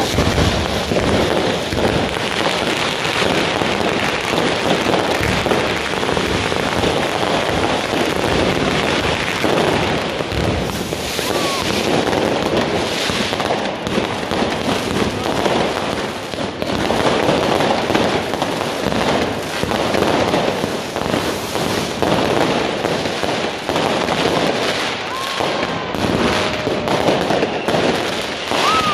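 Consumer fireworks going off all around without pause: dense rapid crackling and banging from firecrackers, fountains and aerial bursts, with a few short whistling glides.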